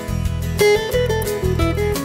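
Background music: guitar over a steady bass beat.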